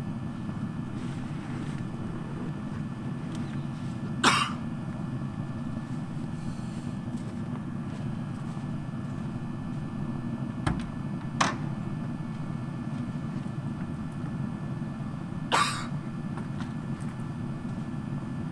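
Steady low hum with a few short, sharp clacks and knocks: one about four seconds in, two close together around eleven seconds, and one near the end. The later ones come as a vehicle's rear door is handled and swung open.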